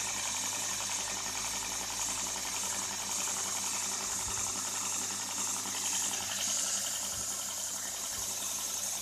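A 2x72 belt grinder running steadily: an even motor hum under a continuous high hiss from the abrasive belt.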